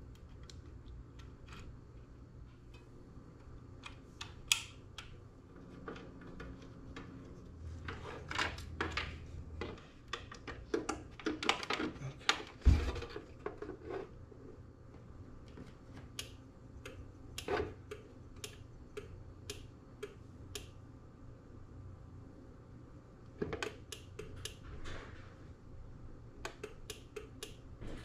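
Irregular clicks and taps as the buttons on a LiftMaster garage door opener's logic board are pressed while programming its travel limits, with one low thump about halfway through. A faint steady low hum runs underneath.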